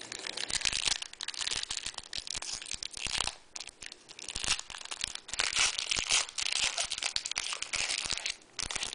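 Foil trading card pack wrapper being torn open and crinkled by hand, crackling in bursts with a few short pauses.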